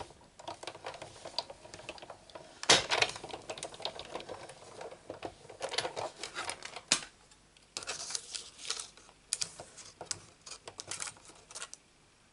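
Hand-cranked Big Shot die-cutting machine with its cutting plates feeding through the rollers: irregular clicks and crackles, a few sharper clicks standing out, then lighter handling of the plates and cut card.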